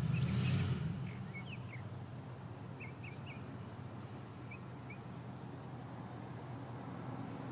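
Outdoor ambience: small birds chirping in short, scattered calls, thinning out after about five seconds, over a low rumble that is strongest in the first second.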